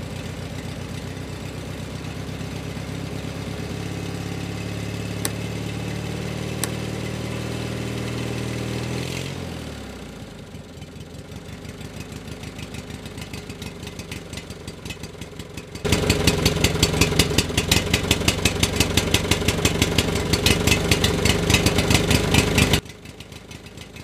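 Tractor engine running with a fast, steady beat. About nine seconds in its pitch drops and it slows to a quieter idle; a much louder stretch of rapid engine pulses starts suddenly later on and cuts off abruptly near the end.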